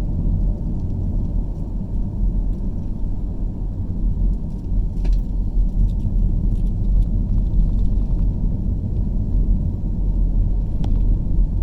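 Steady low rumble of a car driving on a road, tyre and engine noise, with a couple of faint ticks from the cabin.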